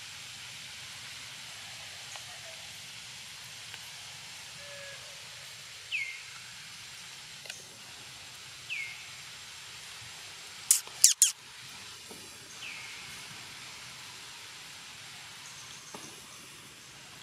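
Steady outdoor hiss with three short, high chirps a few seconds apart, each sliding downward in pitch. A little past the middle comes a quick run of three sharp clicks, the loudest sounds.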